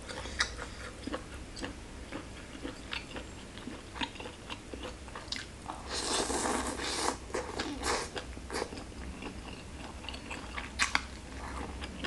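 Close-up eating sounds: moist chewing and lip smacks in scattered short clicks. About six seconds in comes a longer, louder slurp as a mouthful of rice noodles is sucked in.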